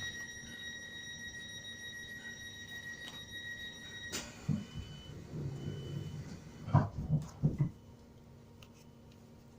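Class 313 train's door warning tone: a steady high tone for about four seconds that cuts off suddenly, then two short beeps. Several loud thumps follow near the end as the sliding doors shut, leaving a low steady hum.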